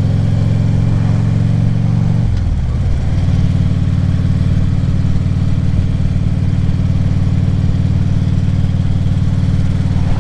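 Harley-Davidson V-twin touring motorcycle engine running steadily at road speed, heard from the rider's helmet; about two and a half seconds in the revs dip briefly and settle at a new steady pitch.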